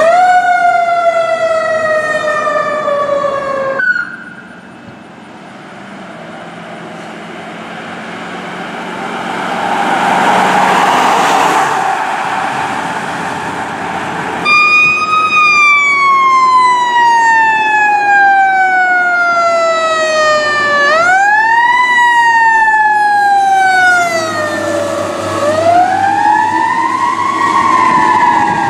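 Fire truck sirens wailing, each a slow glide down in pitch followed by a rise and another fall. Between the first and second siren, several seconds of engine and road noise from a truck swell and fade with no siren.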